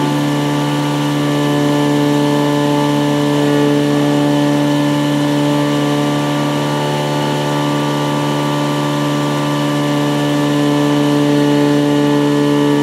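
Small rotary engine running steadily at constant speed, a loud even-pitched drone.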